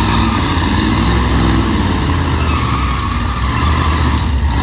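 Drag race car engines idling, a steady loud low-pitched running sound.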